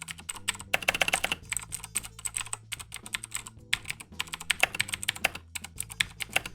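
Typing on a computer keyboard: a fast, uneven run of keystrokes, clicks coming several times a second.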